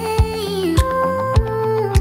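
Background music with a steady beat: a bass drum hits a little under twice a second under a sustained melody.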